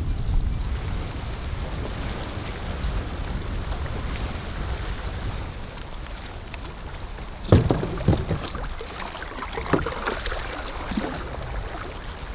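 Wind and water lapping against a rocky shore, with a cluster of knocks and clunks from just past the middle as gear is loaded into a canoe.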